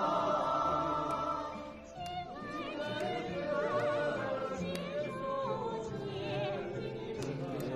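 Background music with singing: sustained choir-like chords at first, then from about two seconds in a solo voice singing with a wavering vibrato.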